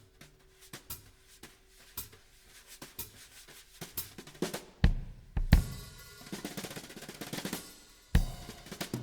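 Drum-heavy music played through a sound system. Sparse sharp drum hits give way to heavy bass-drum thumps about five seconds in, then a fuller, denser passage with another hard hit near the end.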